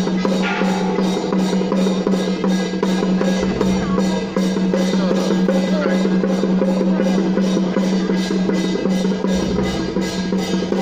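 Temple procession percussion music: drums with a steady beat of about three strokes a second, over a continuous low hum.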